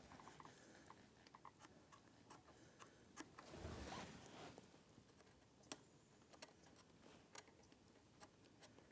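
Near silence with faint, scattered light clicks and rustles of hands handling small parts and a cardboard template, and one sharper click about two-thirds of the way through.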